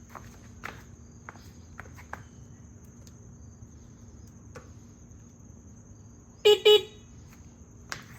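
Two short, loud toots of a horn in quick succession about six and a half seconds in, over a steady high-pitched background tone and a few light clicks.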